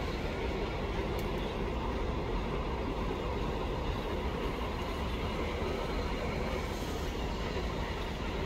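Alsthom diesel-electric locomotive hauling a freight train at slow speed, its engine running with a steady rumble and no distinct knocks or horn.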